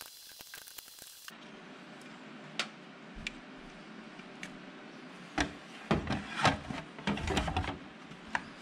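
Hand reassembly of a digital press's fuser unit: a few scattered clicks of parts being handled, then a cluster of knocks and rubbing as the plastic end cover is pushed onto the metal frame.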